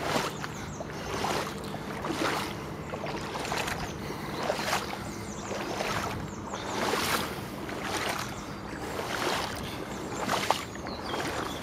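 Footsteps in wellington boots wading through shallow floodwater, each step a splashing swish, roughly one a second.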